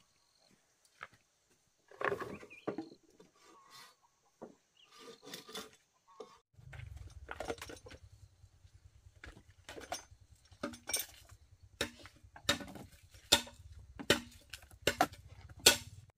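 Scattered clicks and knocks of plastic containers and a jar being handled, set down and opened, growing more frequent in the second half, over a low steady rumble that starts about six and a half seconds in.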